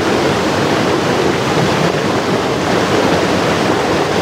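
Mountain stream rushing steadily over rocks and small cascades, an even, loud sound of flowing water.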